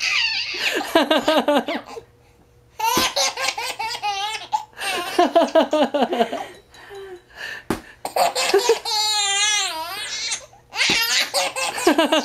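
Baby laughing in repeated bouts of belly laughs and giggles, with a short pause about two seconds in and one long wavering laugh about nine seconds in.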